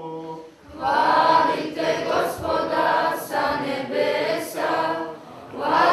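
A young choir of mostly girls singing a cappella in Orthodox church style. The choir comes in about a second in after a single voice holding a note, dips briefly near the end and comes back in.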